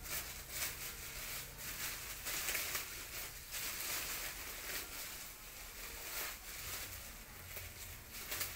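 Black plastic bag rustling and crinkling as it is handled, in irregular crackly bursts.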